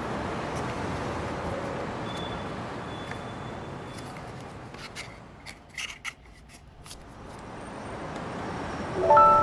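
Background music tails off into a steady hiss that slowly fades away. A few light clicks and rustles come in the quiet middle stretch, and a new passage of music with clear, bell-like notes starts near the end.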